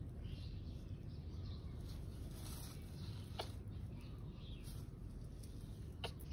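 Quiet outdoor background noise: a steady low rumble, with two sharp clicks, one about halfway and one near the end.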